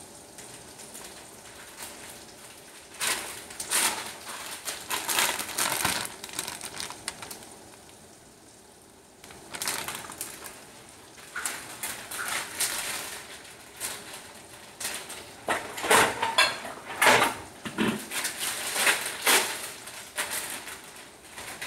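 Plastic food bag crinkling and rustling as it is handled, in irregular bursts with a quieter gap of about two seconds partway through.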